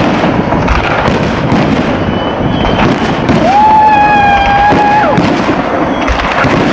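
Fireworks going off in a dense barrage of crackling and booming bursts. A steady high whistle runs for about two seconds just past the middle.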